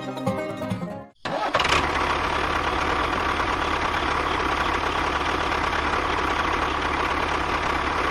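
Background music that cuts off about a second in, then a machine running steadily with a faint constant whine.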